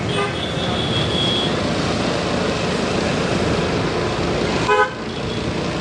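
Steady rumble of a motorbike ride in town traffic, with a vehicle horn tooting briefly right at the start and again, louder, near the end.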